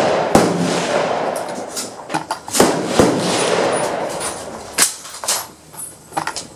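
Rifle fire on an outdoor firing line: about five sharp shots at uneven intervals, each with a short echo.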